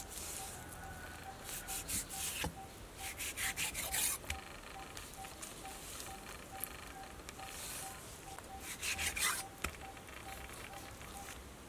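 Knife slicing raw pork on a wooden chopping board: groups of short rasping strokes, the loudest about three to four seconds in and again around nine seconds in, with a couple of sharp knocks of the blade on the board.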